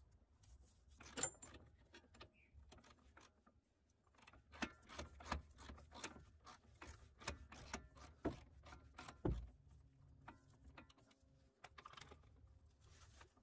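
Faint, irregular metallic clicks and clinks from a ratchet wrench and 19 mm socket as the front lower control arm to frame bolts are worked out. The clicking is busiest through the middle of the stretch.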